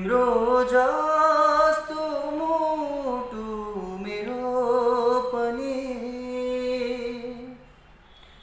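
A man singing unaccompanied, drawing out long wordless notes that glide and waver up and down in pitch. The voice stops about a second before the end.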